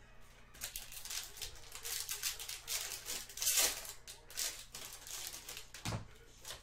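Trading-card packs and cards being handled: irregular crinkling, rustling and small clicks of foil wrappers and cards, with a few louder rustles about halfway through and near the end.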